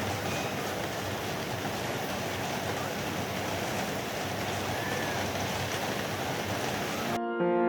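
A steady rushing noise, even and unbroken, with a few faint short high chirps. Near the end it cuts off suddenly and music with held notes begins.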